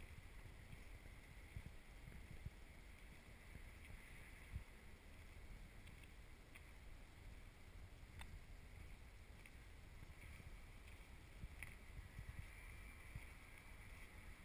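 Near silence: a faint low rumble of wind on the microphone, with a couple of faint clicks.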